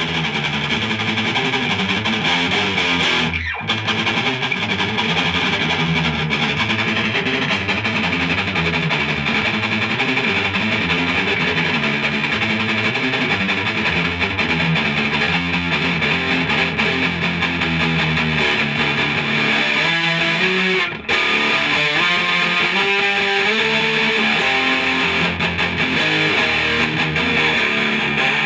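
Thomson Les Paul-style electric guitar in drop C tuning, played through a high-gain distorted tone: continuous heavy riffing and strummed chords, with two brief breaks, one a few seconds in and one about two-thirds through.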